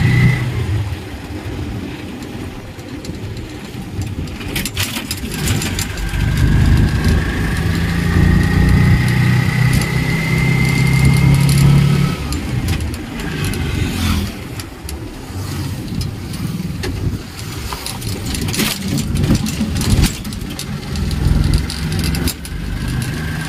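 Road vehicle's engine and road noise heard from inside the cabin while driving, with scattered rattles and knocks. From about 6 to 12 seconds in the engine pulls harder with a slowly rising whine, then eases off.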